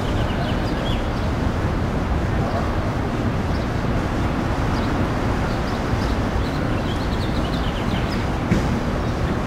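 Steady low rumbling outdoor noise, wind buffeting the camera microphone, with faint short high chirps now and then and a single sharp click near the end.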